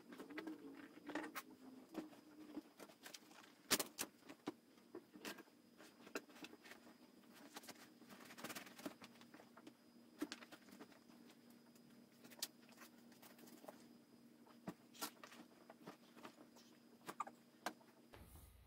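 Irregular light clicks, taps and knocks of wooden bassinet parts and small metal hardware being handled during assembly, the sharpest knock about four seconds in.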